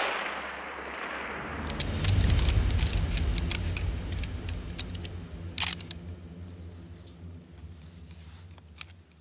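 Echo of a rifle shot rolling away through the timber. Then a low rumble with a quick run of sharp clicks and snaps for a few seconds, and one louder click about midway, fading toward the end.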